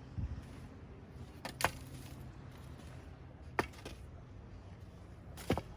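Four short sharp clicks about two seconds apart over a faint low steady hum.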